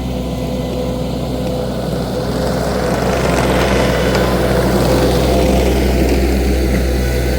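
Engine of a Wacker SM120 stand-on mini skid steer running steadily under work, getting louder about three seconds in.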